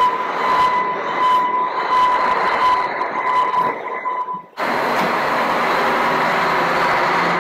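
Double-decker coach bus running as it pulls out, with a steady high whine over the engine noise for the first four seconds or so. After a sudden break it becomes a steady, louder rush of engine and road noise.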